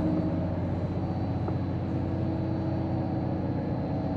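Steady mechanical hum of running condenser fans and refrigeration machinery: an even drone with several steady tones.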